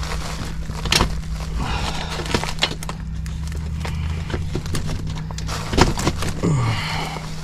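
Sheet-metal clanks, taps and scrapes as a zone damper is worked into place on the ductwork, over a steady low hum.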